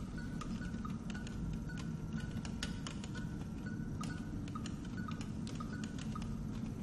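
Electronic computer-game sounds: short high bleeps and irregular clicks over a steady low hum.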